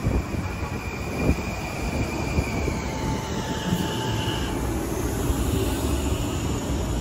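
Long Island Rail Road commuter train running along the track, a steady rumble of wheels on rail with a few faint high squealing tones.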